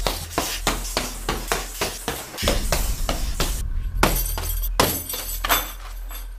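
Rapid punches and kicks thudding into a hanging leather heavy bag, several hits a second over a low steady drone. About four seconds in come a few harder hits with a clinking, glassy ring.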